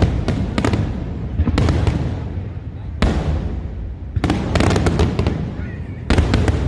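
Aerial firework shells bursting in quick succession: sharp cracks and booms in clusters about every second or so, over a continuous low rumble.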